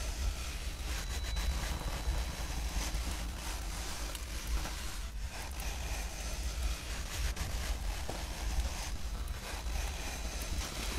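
A steady low rumble with a rustling hiss over it, wind-like, with faint crackles.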